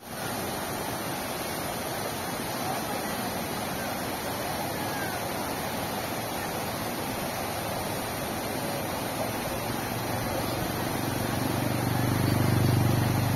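Floodwater rushing steadily over a small concrete weir. A low hum swells in about ten seconds in and is loudest just before the end.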